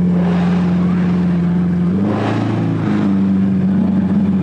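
A car engine running at a steady, even pitch. About two seconds in the note drops and breaks up with a brief rush of noise, then settles back to the same steady note.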